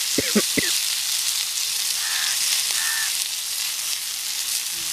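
Catfish pieces frying in oil on a flat iron griddle, a steady hissing sizzle. Two brief sharp sounds come a fraction of a second in.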